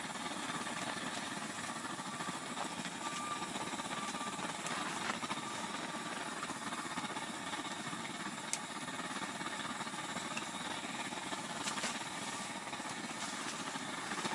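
A liquid-fuel blowtorch (blowlamp) burning inside a fishing tent, giving a steady, even hissing rush that doesn't change.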